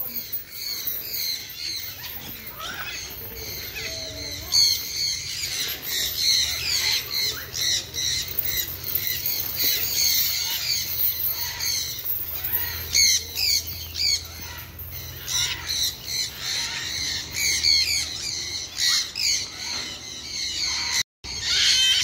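A flock of parrots squawking and chattering: many short, shrill, overlapping calls that go on without a break.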